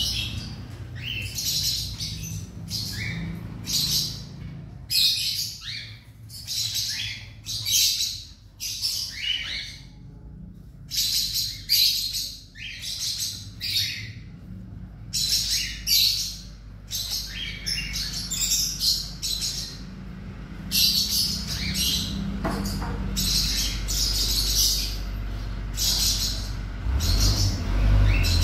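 Baby plantain squirrel (coconut squirrel) squeaking while it is syringe-fed: runs of quick, high-pitched chirps, broken by short pauses.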